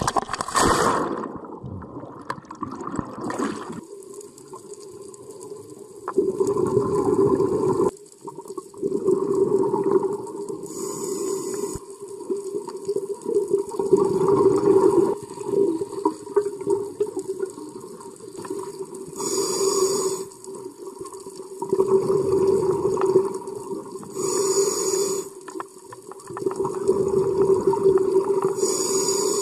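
Scuba diver's breathing through a regulator underwater: exhaled air bubbles gurgling in bursts every few seconds, with four short sharp hisses of inhalation through the regulator. It opens with a loud rush of water noise.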